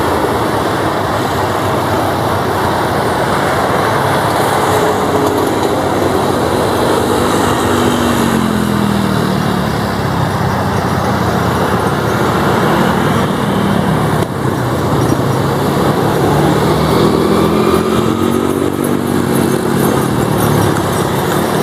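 NC-212 twin turboprop engines and propellers at high power during takeoff, a loud steady drone whose hum slides down in pitch about eight seconds in and again near the end as the aircraft pass.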